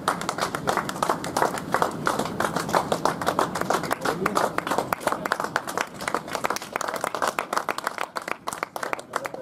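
A group of people clapping continuously, thinning out a little near the end.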